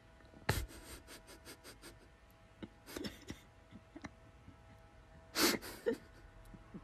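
A dog gnawing on a painted wooden banister spindle: teeth scraping and clicking on the wood in quick short strokes, about six a second, after a sharp first sound about half a second in, with louder noisy bursts about two-thirds of the way through.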